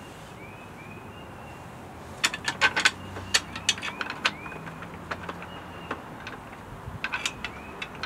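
Small metal hardware, bolts and washers, clicking and clinking as the parts are handled and fitted: a cluster of sharp clicks about two seconds in and another near the end.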